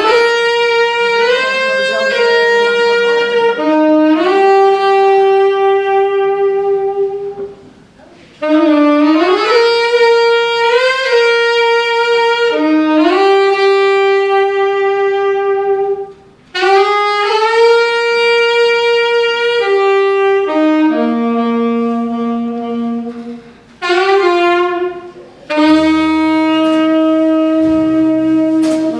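Tenor saxophone playing a slow jazz ballad melody in long held notes, phrase by phrase with short breaks between. Near the end a double bass and light drum taps come in underneath.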